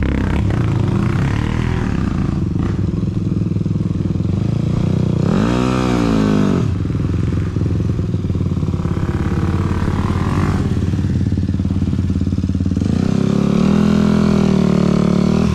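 Dirt bike engine idling close to the microphone, with a quick throttle blip about six seconds in that rises and falls in pitch. It holds a higher steady rev from about thirteen seconds in.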